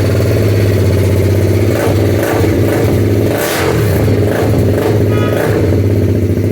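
BMW G310 RR's single-cylinder engine running through an aftermarket SC-Project exhaust just after starting, idling with a deep, steady note that wavers briefly a few times in the middle.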